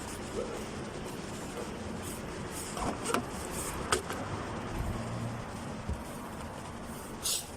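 A few light clicks and soft knocks from work on the car's fuel line as a new fuel filter is fitted, over a steady background hum.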